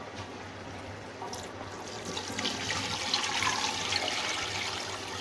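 Water being poured from a jug into a metal cooking pot onto freshly fried masala, a steady rushing pour that gets louder about two seconds in.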